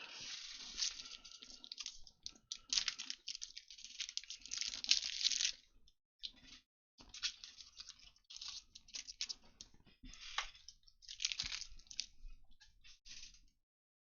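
Plastic packaging of penny card sleeves crinkling and rustling, with small clicks, in irregular bursts as a fresh supply of sleeves is taken out; it stops shortly before the end.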